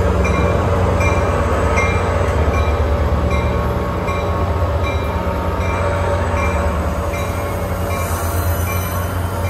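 NJ Transit train at the station: a loud, steady low rumble, with a bell ringing evenly just under twice a second.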